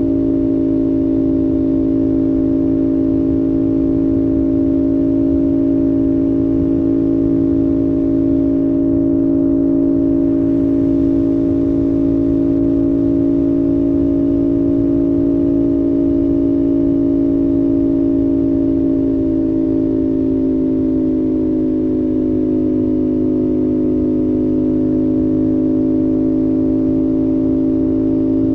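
CFMOTO 450SS parallel-twin engine running steadily at cruising speed, a constant droning tone that eases slightly in pitch about two-thirds of the way through.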